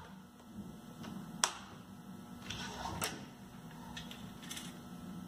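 A few light metallic clicks and taps of bolts and washers against a metal engine base plate as they are fitted by hand, the sharpest about a second and a half in and again about three seconds in.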